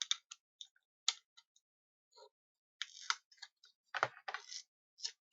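Irregular small clicks and short scrapes of a hand tool working at a modem's circuit board, a few sharper clicks about a second in and near the end.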